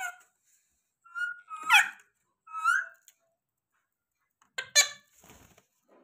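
Indian ringneck (rose-ringed) parakeet calling: a few short, high-pitched squawks between one and three seconds in, and another loud one near the end.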